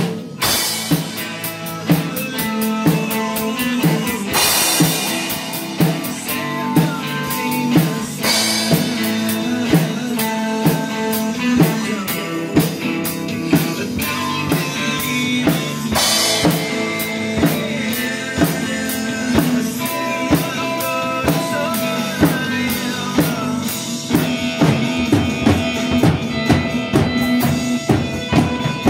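Drum kit and acoustic guitar playing a rock song together: steady kick and snare beat under strummed chords, with crash cymbal accents a few times.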